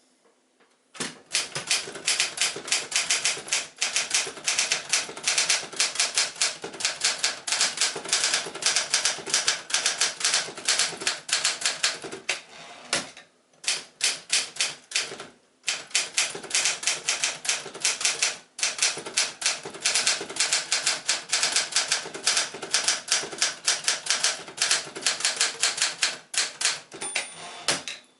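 1966 Adler Special typewriter being typed on at a brisk pace: a rapid run of key strikes starting about a second in, broken by a few short pauses partway through.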